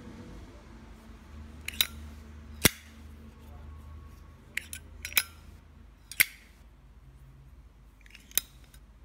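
Zippo 1935 Replica brushed chrome lighter being handled, giving a scattered series of sharp metallic clicks, the loudest a little under three seconds in.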